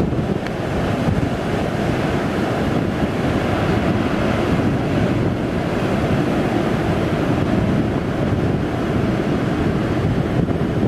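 Heavy ocean surf breaking against dark volcanic rocks and washing through the shallows in a continuous loud rush, with wind buffeting the microphone.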